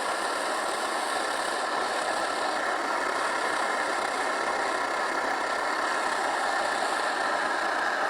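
MSR DragonFly liquid-fuel backpacking stove burning steadily with its valve opened up for a bigger flame: an even, unbroken rushing noise. Priming is done and the burner is running on vaporised pressurised fuel.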